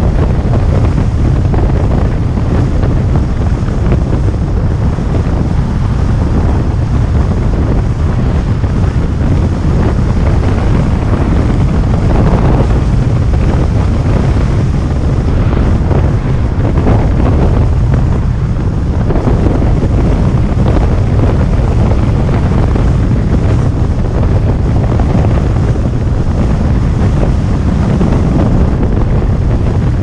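Steady wind buffeting on the microphone of a camera on a moving car, over the low rumble of the car driving along the road.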